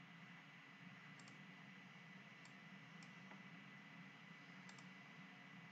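Near silence: faint room tone with a few soft, scattered clicks from a computer mouse and keyboard.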